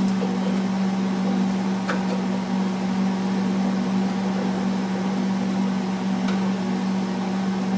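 Steady hum with one strong low tone from a wire-feed welder switched on and idling, its cooling fan and transformer running. A couple of faint clicks come through, about two seconds in and again about six seconds in, as the ground clamp is set.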